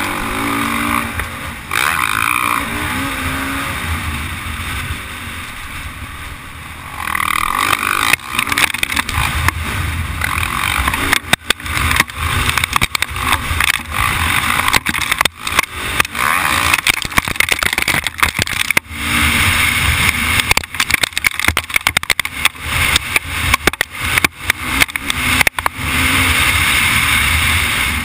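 Dirt bike engine revving up and falling back under the rider's throttle, heard from a camera mounted on the bike, with wind noise. From about eleven seconds in, frequent sharp knocks from the bike jolting over the rough track break in.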